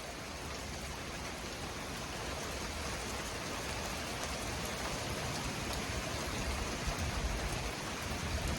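Heavy thunderstorm rain pouring down steadily, slowly growing louder. Near the end, gusts of wind buffet the microphone with a low rumble.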